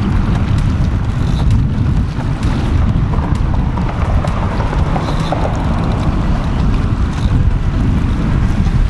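Wind buffeting the microphone: a loud, steady, low rumble.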